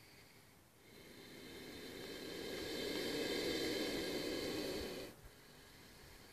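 Cobra hissing: one long breathy exhalation that swells over about four seconds and cuts off suddenly about five seconds in.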